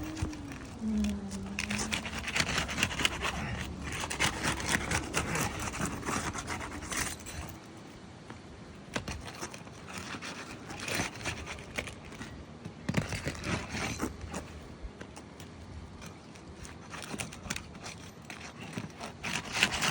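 Old asphalt architectural shingles being pried up and ripped off the roof: a run of scraping, crackling and tearing with sharp clicks that pauses now and then and starts again. The shingles tear apart instead of lifting whole, the sign that they are too brittle to repair.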